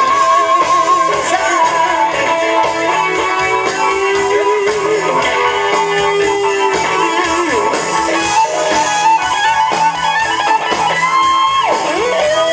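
Live rock band playing: electric guitars carrying a sustained, bending melodic line over drums and bass.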